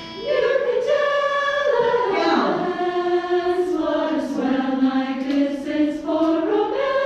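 Choir singing a slow, sustained phrase. The melody sinks gradually through the middle and climbs again near the end.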